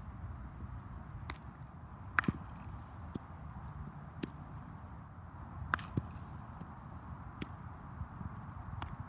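Baseball practice impacts: about nine sharp cracks and pops at irregular intervals, from balls being hit and caught, over a steady low rumble.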